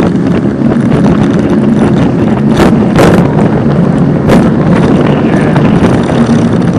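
Small motorboat's engine running steadily underway, with wind on the microphone. Three sharp thumps come in the middle, two close together and one about a second later.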